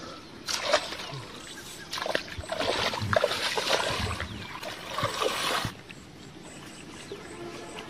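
Water splashing and sloshing in a shallow muddy ditch as someone wades through it, in uneven bursts for about five seconds before it dies down.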